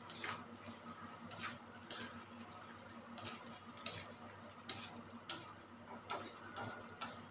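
Metal fork scraping and clinking against a stainless steel wok as beef and bitter gourd are stir-fried: about ten short, irregular clicks over a faint steady background.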